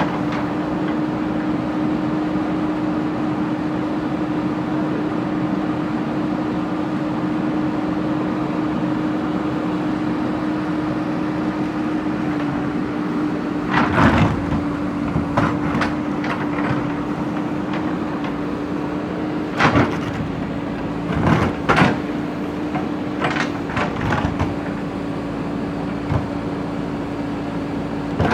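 JCB backhoe loader's diesel engine running at a steady pitch, with short knocks and scrapes from the bucket working brick and stone starting about halfway through.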